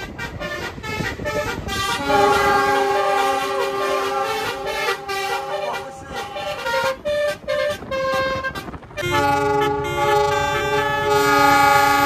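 Multi-tone 'basuri' (telolet) car horn sounding a run of held chords, changing notes every second or two. From about nine seconds in a louder horn chord comes in over a low rumble as a KAI CC 206 diesel-electric locomotive passes.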